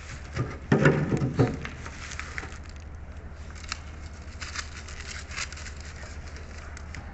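Close-miked eating sounds: scattered small crackles and clicks of chewing and food handling. There is a short, louder low-pitched sound about a second in, all over a steady low hum.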